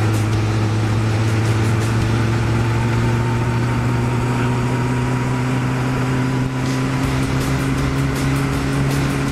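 Honda CB1100SF X11's inline-four engine running steadily as the motorcycle cruises. Its note rises slowly as the bike gathers speed, over a steady rush of wind and road noise.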